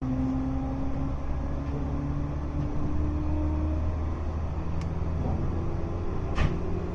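JNR 213 series electric train running, heard from the cab: a low rumble with a steady hum that slowly creeps up in pitch. A sharp click comes about six seconds in.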